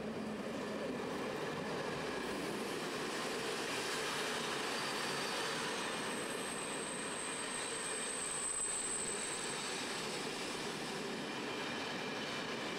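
Passenger coaches of a train rolling past on the track: a steady rush and rumble of wheels on rail. A thin high squeal rises over it for a few seconds midway.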